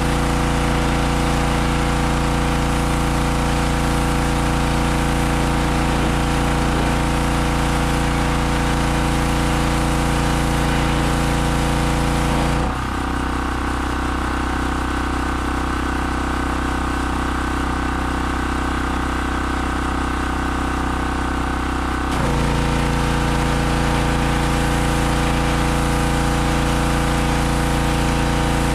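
Gas engine of a Harbor Freight 2500 PSI pressure washer (160 cc) running steadily, with a high hiss over it. About 13 seconds in the hiss drops away and the engine note changes for about nine seconds, then both come back.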